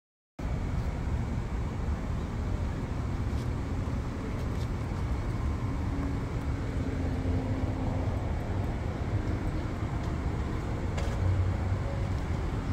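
Steady outdoor city traffic noise, mostly a low rumble with a faint hum of passing engines. It starts after a brief silent gap at the beginning.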